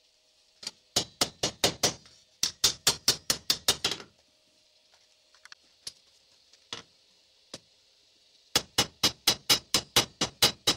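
Hand hammer striking a red-hot steel knife blade on an anvil in quick runs of about four to five ringing blows a second: two short runs early on, then a longer run starting near the end. This is the blade being forged to shape.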